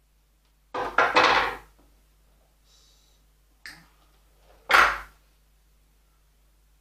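Metal hand tools, bonsai pliers and cutters, handled against the pot and the wooden table: a scraping clatter about a second in, a small click, then a second short clatter near the end.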